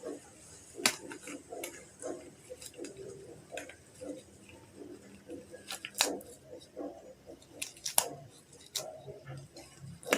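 Disposable examination gloves being pulled on: soft rustling and handling with several sharp, scattered snaps.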